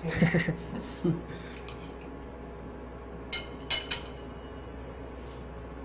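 Fork clinking against a ceramic plate: three short ringing clinks close together about three and a half seconds in, after a brief murmur of a voice and a soft knock at the start, over a low steady hum.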